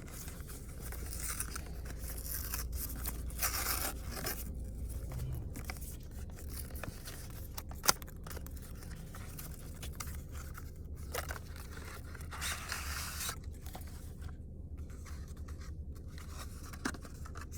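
Stylus packaging being opened by hand: irregular rustling, scraping and tearing of plastic and cardboard, with one sharp click about eight seconds in.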